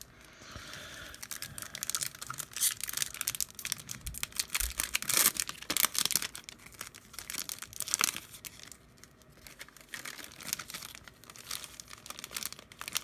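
A sealed wrapper pack holding a returned graded card being ripped open and crinkled by hand: an irregular run of tearing and crackling, busiest in the middle and thinning out near the end.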